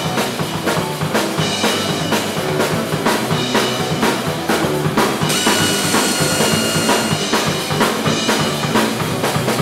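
Background music with a driving drum-kit beat: bass drum and snare hits over a steady band.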